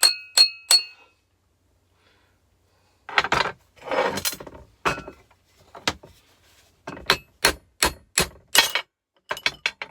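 Hammer blows on a steel drift, knocking a needle bearing out of a car compressor's aluminium housing: a few ringing metal strikes at the start, a pause with some handling noise, then a steady run of blows about two or three a second and a quicker cluster of taps near the end.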